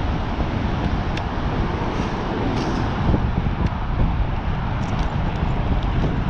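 Steady rush of wind buffeting the microphone, with tyre noise from a fixed-gear bicycle rolling along a bike path and a few faint ticks.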